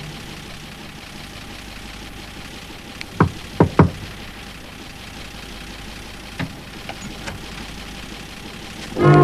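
Three sharp knocks on a door, the second and third close together, over a low steady hum; a few faint clicks follow.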